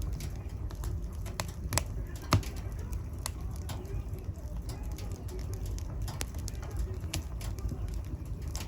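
Wood fire in a fireplace crackling, with irregular sharp pops over a low steady rumble of the flames; one louder pop a little over two seconds in.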